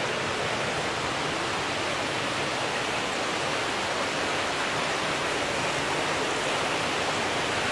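Water running along a recirculating water channel, a steady, even rushing noise.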